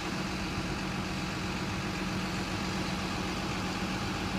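Diesel engine of a Junttan pile-driving rig running steadily with a constant low hum; no hammer blows stand out.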